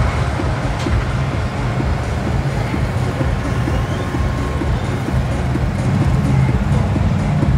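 Engine of a tractor-pulling machine running loud and steady.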